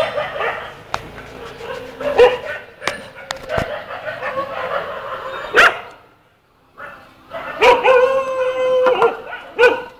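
Stray puppies yipping and whining in a run of short, high calls, with one longer drawn-out whine of steady pitch about eight seconds in.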